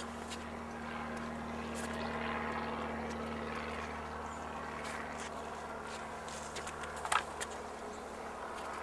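Distant Class 56 diesel locomotive, with its Ruston-Paxman 16-cylinder engine, running as it approaches with a coal train, heard as a steady low drone. A single sharp clank sounds about seven seconds in.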